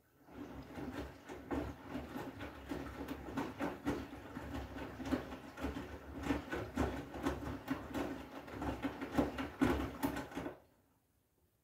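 Front-loading washing machine drum turning during a wash, wet laundry tumbling over in irregular knocks and thuds above a steady motor hum. The drum stops near the end.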